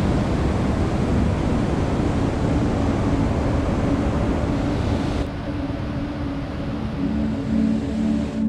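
Loud, steady rush of a big waterfall's falling water. After about five seconds it cuts to a quieter, duller rush. Background music with a steady low pulse plays underneath.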